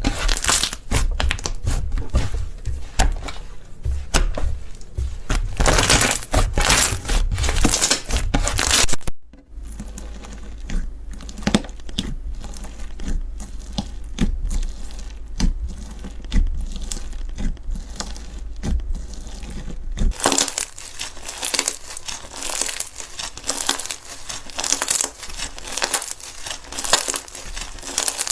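Slime being squeezed and pressed by hand, giving a dense run of small crackling, crinkling clicks. The sound cuts off sharply about a third of the way in. It continues quieter and sparser over a low hum, then turns dense and louder again about two-thirds of the way through.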